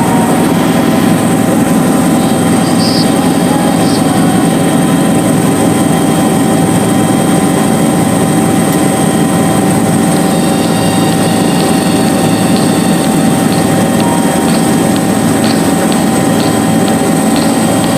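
Bell 205 (UH-1H) helicopter running steadily: a loud, unchanging mix of turbine whine and rotor noise, with several steady tones over a dense low drone.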